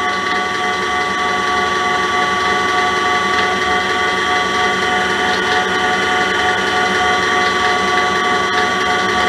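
Electric stand mixer running steadily, its whisk beating cream in a stainless steel bowl: a steady motor whine with several fixed tones over a churning whir. The cream is nearly whipped.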